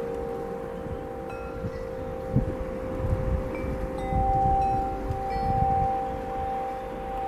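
Hanging metal-tube wind chimes ringing, several long tones overlapping, with a fresh strike about four seconds in. Under them is a low rumble of wind on the microphone.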